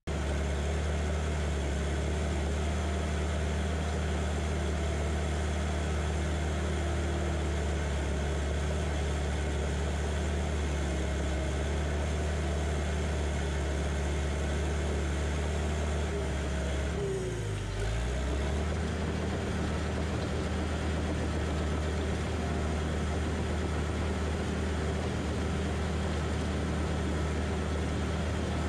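Diesel engine of a John Deere 450J crawler dozer running steadily under load while pushing dirt, heard close up. About two-thirds of the way through, the engine note dips briefly and then comes back up.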